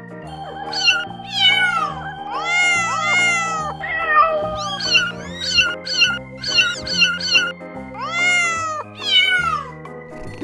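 Young kittens mewing again and again in high calls that mostly fall in pitch, more than a dozen of them, with a quick run of short mews in the middle, over background music.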